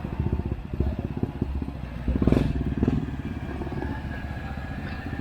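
Off-road motorcycle engine running under load, with a burst of revs about two seconds in that is the loudest moment.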